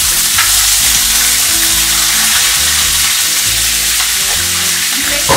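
Canned mushrooms sizzling loudly in a frying pan of leftover bacon fat as they are stirred.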